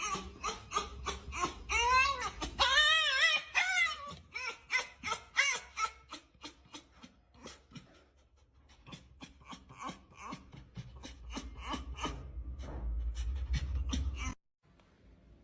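A dog whining and crying with a wavering pitch. Then comes a run of short, sharp sounds, and later a low rumble that cuts off suddenly.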